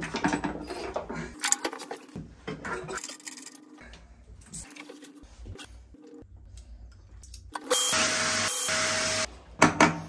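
Metal clicks and knocks of an adjustable wrench working a compression fitting on copper pipe, then quieter handling. Near the end a power tool runs for about a second and a half, followed by a couple of sharp hammer taps on the wall tile.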